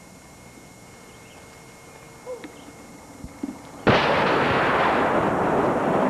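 A small wheeled cannon fires once: a single sharp blast about four seconds in, followed by a loud rushing rumble that fades slowly as it dies away.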